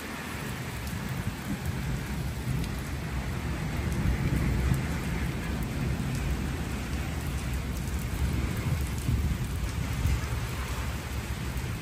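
Steady monsoon rain falling on a wet concrete courtyard, with a low rumble of distant thunder underneath that swells a little about four seconds in.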